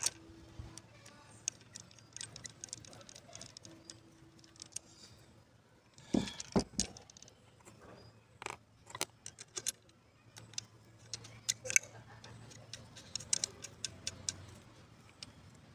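Irregular small metallic clicks and taps from a screwdriver working the through-bolts that hold a Bosch alternator's two housing halves together. The clicks come louder in a cluster about six seconds in and again near the end, over a faint low hum.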